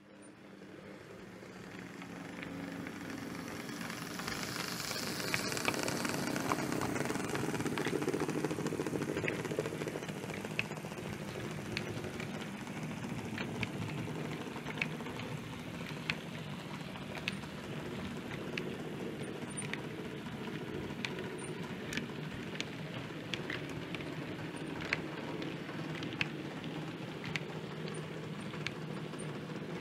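OO scale model freight train running past at close range: a steady rumble of the locomotive and rolling wagons, with wheels clicking over the rail joints about once a second. The sound fades in at the start and is loudest as the locomotive passes.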